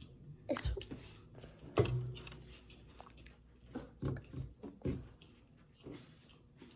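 Irregular crinkles and clicks of small plastic toy packaging being handled and pulled at while someone tries to get it open.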